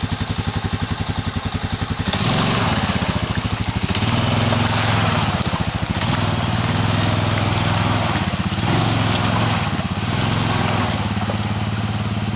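Arctic Cat 454 ATV's single-cylinder four-stroke engine ticks over evenly. About two seconds in it revs up and runs under load, its speed rising and falling, with a hiss over it.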